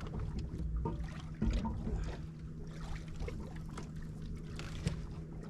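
Boat motor running steadily, a low even hum, with wind on the microphone and a few light knocks on the boat.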